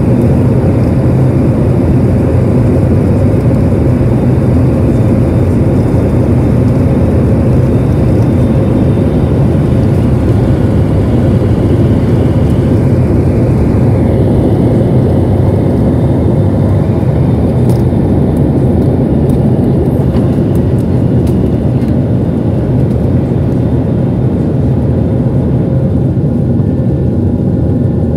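Boeing 737-700's CFM56-7B turbofan engines at takeoff thrust, heard from inside the cabin: a loud, steady roar and rumble through the takeoff roll and liftoff, easing slightly near the end as the plane climbs away.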